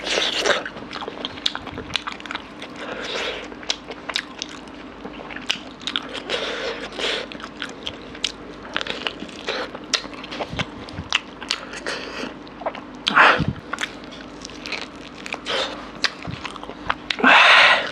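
A man biting and chewing bone-in pieces of mutton from a mutton curry, with many wet mouth clicks and smacks and some crunching. A louder, noisier mouth sound comes near the end.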